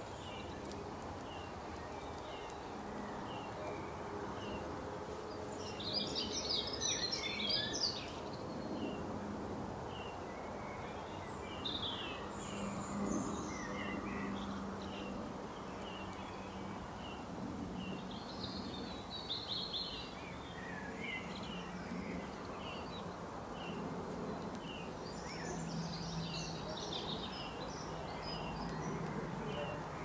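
Birds calling in a garden: a short high note repeated about once a second throughout, with louder bursts of twittering song about six seconds in and again later, over steady background noise.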